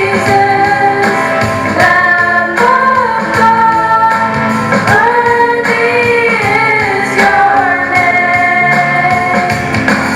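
A female voice singing a slow melody over guitar accompaniment, with long held notes.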